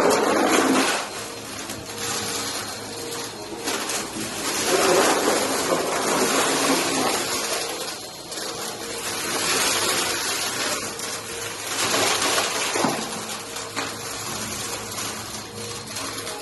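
Vacuum cleaner running on carpet and sucking up a scattered debris mix. Its steady motor hum rises and falls in loudness every few seconds as it is pushed back and forth.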